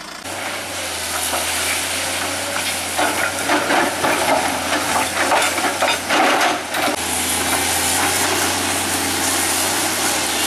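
Sumitomo tracked excavator's diesel engine running steadily while its bucket digs through landslide rubble, loose rocks clattering and scraping, thickest between about three and seven seconds in.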